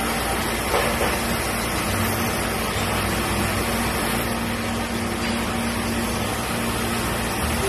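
CNC milling machine running a four-axis contouring cut: the spindle and end mill cutting a round workpiece turned by the rotary axis, with flood coolant splashing over it. A steady machine hum and hiss with no breaks.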